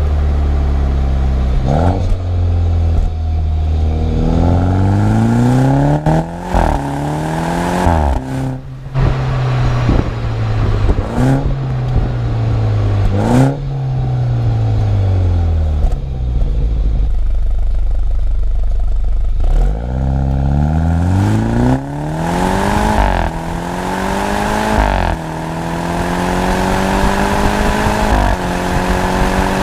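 BMW 125i's B48 turbocharged four-cylinder engine through a stock M140i cat-back exhaust, accelerating with the revs climbing and dropping at each quick upshift. Near the middle the revs fall away on lift-off with a few sharp pops, then it pulls hard through several more upshifts.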